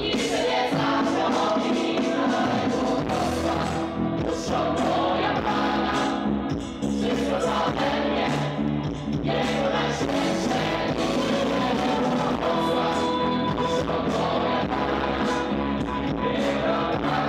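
A vocal ensemble singing a song live with instrumental backing.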